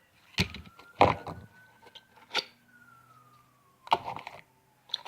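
Handling of small plastic slime containers and lids: a series of sharp knocks and clatters. Behind them a faint siren slowly rises and then falls in pitch.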